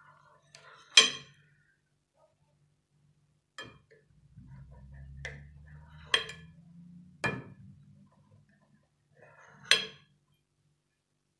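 Plastic knife clinking against a glass baking dish while cutting set arabaşı dough: about six sharp separate clinks, the loudest about a second in. A low hum sounds through the middle.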